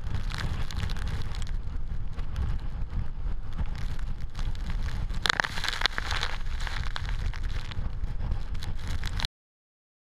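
Typhoon winds buffeting the microphone with a steady low rumble over the hiss of storm surge and wind-driven spray. About five seconds in, a loud rushing hiss as a wave breaks and spray engulfs the seawall. The sound cuts off abruptly near the end.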